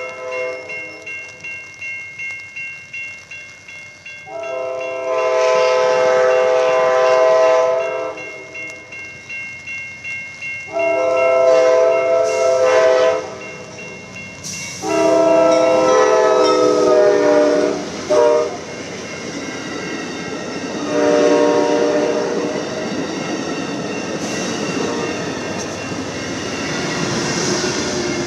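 Amtrak passenger train's multi-chime horn sounding a string of long blasts with one short blast near the middle, the grade-crossing warning, as the train approaches. After the last blasts the train passes close by, wheels clicking over the rail joints amid a rising rush of noise.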